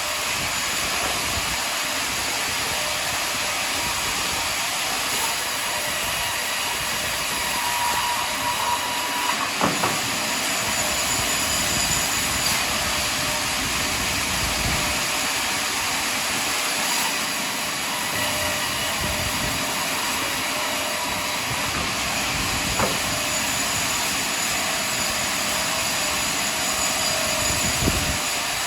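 Sawmill running steadily while it cuts up a large pine log: an even, high-pitched mechanical noise, with a couple of faint knocks.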